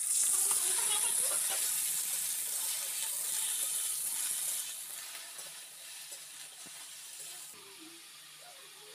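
Paneer cubes dropped into hot mustard oil in a kadhai, sizzling loudly at once as they are stirred; the sizzle eases off about five seconds in.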